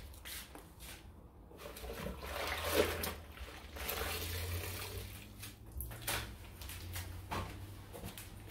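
A floor mop swishing across the floor: a rough noise that swells about two seconds in and then eases, with a few light knocks later.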